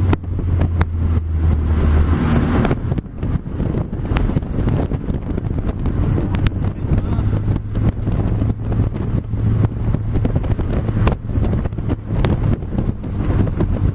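Inside a moving car's cabin: the engine runs steadily at low revs under wind and road noise, with frequent sharp knocks and rattles throughout.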